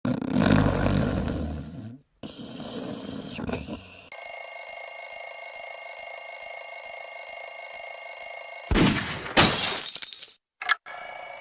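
A run of spliced cartoon sound effects. It opens with a sudden noisy crash that fades over about two seconds. About four seconds in comes a steady high-pitched electronic ringing of several held tones, lasting about four and a half seconds. Short harsh noise bursts follow near the end.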